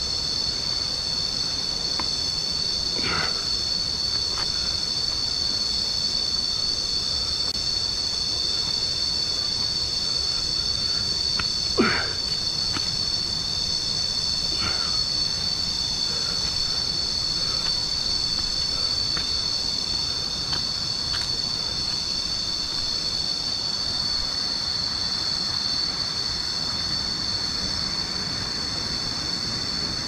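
Jungle insects droning in a loud, steady, high-pitched chorus that does not let up. A brief sharp sound cuts through about twelve seconds in.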